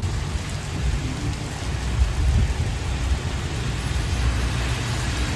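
Heavy rain pouring down onto a parking lot and parked cars: a dense, steady hiss with a deep low rumble underneath.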